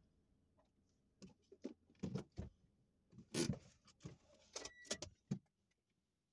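Irregular clicks, knocks and rustles inside a stationary car, loudest in a short rustling scrape about three and a half seconds in, then a few sharp clicks.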